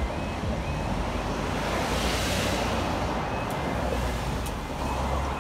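Cars driving over a level crossing, tyre and engine noise from a steady stream of traffic, one passing close about two seconds in, with wind on the microphone. The crossing's warbling two-tone alarm carries faintly through the first second, then stops.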